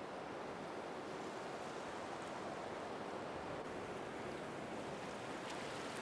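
Steady, even rush of open sea water and wind, fairly quiet, with no tones or rhythm.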